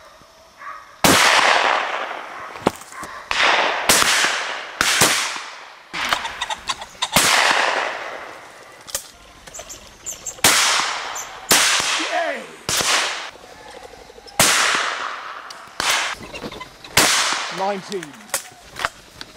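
Shotguns firing at driven pheasants, the nearest a Browning 725 over-and-under: a rapid string of more than a dozen shots, some close and loud and others fainter from further along the line, each with a long echoing tail.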